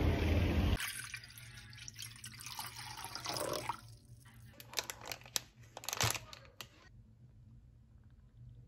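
Water splashing and dripping in a stainless steel saucepan, with several sharp clinks and knocks. A loud rush of outdoor noise cuts off under a second in, and near the end things go quiet.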